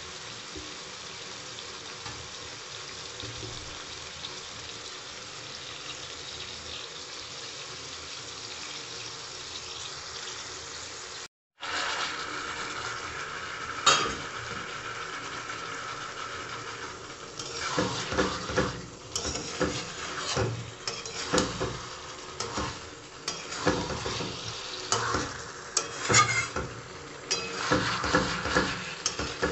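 Chicken curry sizzling steadily in a metal kadai. After a brief cut about a third of the way through there is a single click. From a little past the middle, a steel spatula scrapes and clatters against the pan in quick, uneven strokes as the curry is stirred.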